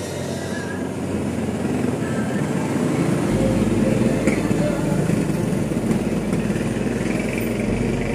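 A small engine running steadily, growing louder over the first few seconds and then holding.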